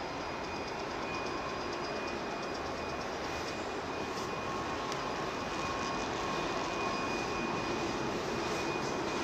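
Steady rushing noise of wind and the ship's machinery on an open upper deck, with a few faint steady hums running through it and growing slightly louder toward the end.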